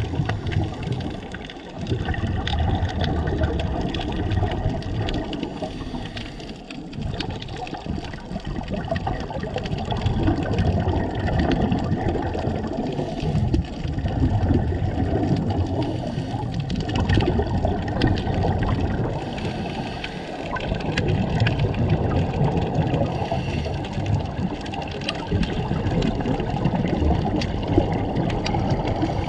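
Muffled rushing water noise heard through an underwater camera, swelling and easing every few seconds, with scattered small clicks.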